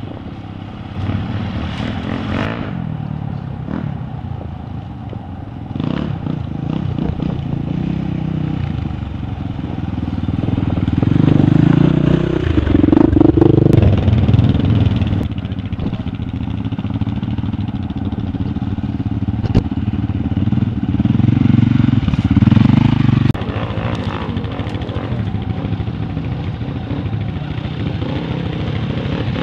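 Enduro and dual-sport motorcycles riding past one after another on a muddy track, engines running and revving. The sound swells as each bike comes close, loudest about halfway through and again a few seconds later.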